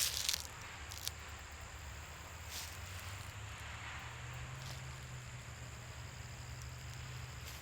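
Footsteps rustling on the dry woodland floor: a few scattered steps, the loudest right at the start, over a faint steady low hum.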